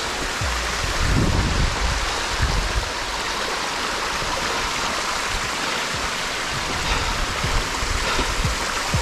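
Water from a small mountain cascade running down a rocky gully, a steady rush, with a few soft low thumps in the first few seconds.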